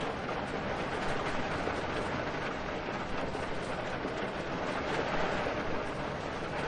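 Steady rain falling: an even rushing hiss of many drops at a constant level.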